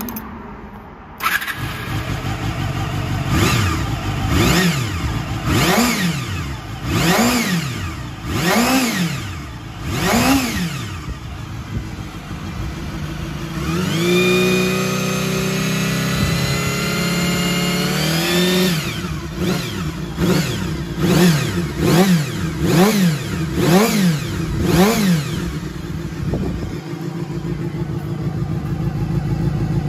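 Honda Hornet 250's inline-four engine through an aftermarket full exhaust system, catching about a second in, then revved in about six quick throttle blips. It is held at high revs for about five seconds, blipped about six more times, and settles to a steady idle.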